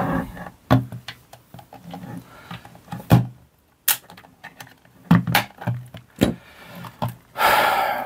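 Irregular sharp plastic clicks and dull knocks from a screwdriver levering apart the clipped-together plastic case of a cordless vacuum cleaner battery pack, its snap-fit clips giving way. A longer rasping sound comes near the end.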